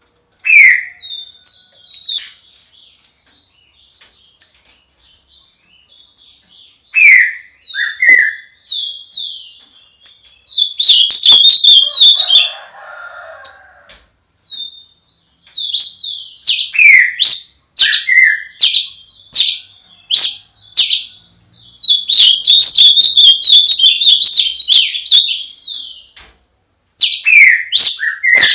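Songbirds singing: phrases of quick falling whistled notes and fast chattering trills, repeated with short pauses between them.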